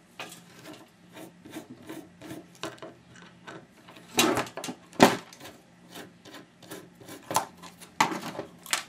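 Hand screwdriver turning screws out of a hard drive's metal casing: a run of small clicks and scraping as the bit works in the screw heads, with a few louder knocks about halfway through and near the end.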